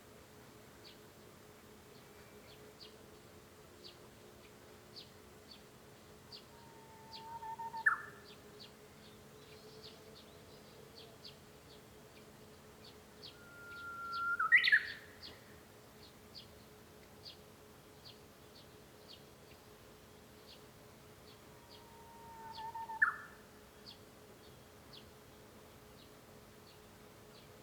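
Japanese bush warbler (uguisu) singing its 'hoo-hokekyo' song three times, each a long held whistle breaking into a quick rising flourish. Short, sharp high ticks repeat about once or twice a second throughout.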